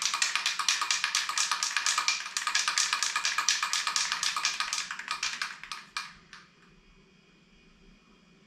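Aerosol spray can of truck bed liner being shaken hard, its mixing ball rattling in a fast, even clatter. The rattling stops suddenly about six seconds in, leaving a faint hum.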